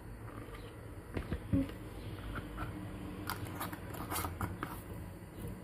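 Scattered light clicks and knocks of kitchen utensils and cookware being handled, one knock about a second and a half in giving a brief metallic ring.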